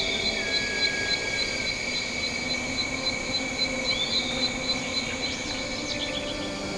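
Jungle nature ambience of insects: a steady high-pitched insect drone with a cricket-like chirp pulsing about four times a second above it. A few short rising whistles come through around the middle and near the end, over a faint low hum.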